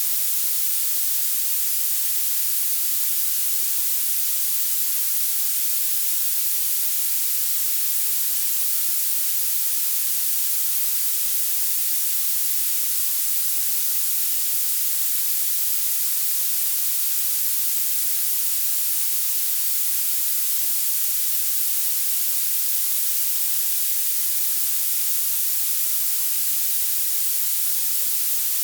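Violet noise: a steady, unchanging synthetic hiss weighted heavily toward the highest pitches, with almost nothing in the low end.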